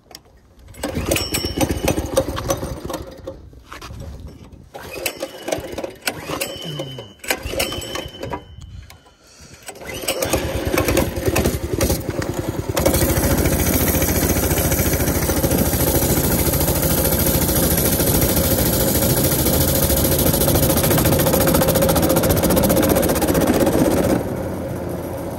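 Baja Warrior minibike's small engine: a few short rough bursts of starting and sputtering in the first ten seconds, then it catches and runs steadily, louder from about thirteen seconds in, easing off a little near the end.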